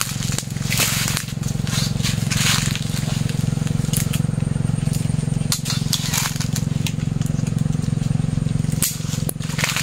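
Hand pruning tool cutting into a jackfruit branch: irregular crackling snips and the rustle of the branch and leaves being handled. A steady low hum runs underneath.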